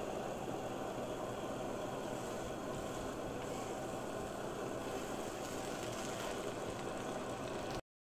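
Steady hiss with a faint constant hum from the stove as vermicelli cooks in a frying pan. It cuts off abruptly near the end.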